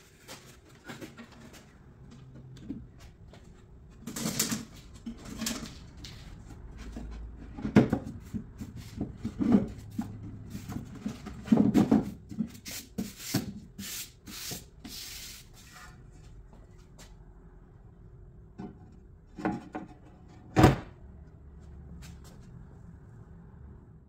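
Wooden tabletop being handled and set onto its wooden frame: scattered knocks, rubs and scrapes of wood on wood, with a single sharp knock near the end.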